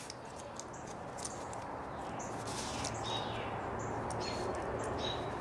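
Hand wire stripper and electrical wire being handled: small high clicks and a few brief squeaks as the stripper works the insulation, over a low steady hiss.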